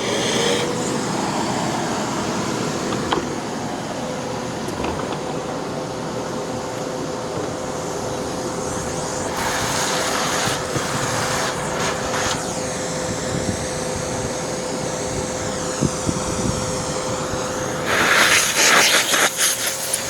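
Small blue Bosch vacuum cleaner switched on and running steadily with a whine over a rush of air, used to suck a clog out of a Hoover NanoLite's air path; the clog does not come free. The rush of air turns brighter for a few seconds about halfway through and again near the end.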